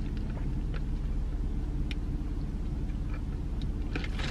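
Steady low hum of a car's engine idling, heard from inside the cabin, with a few faint light clicks.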